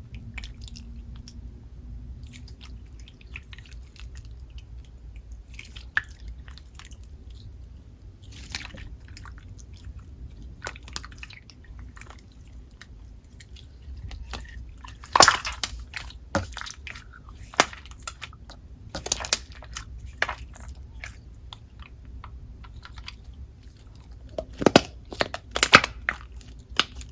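Hands squishing and stretching a soft, jiggly yellow Play-Doh slime, giving scattered soft, sticky clicks and pops. The loudest pops come about halfway through and again near the end.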